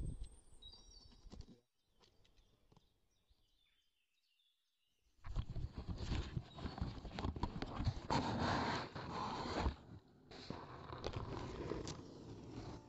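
Cardboard parcel and its packaging being opened and handled close to the microphone: a dense crackling rustle full of small clicks. It starts about five seconds in, after a few seconds of near silence.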